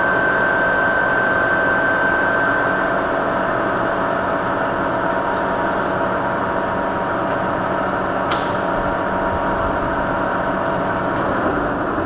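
Bridgeport knee mill's spindle running steadily while a drill bit is power-fed into 1/4-inch-wall square steel tubing. A high steady whine stops about three seconds in and the noise drops a little, and a single sharp click comes about eight seconds in.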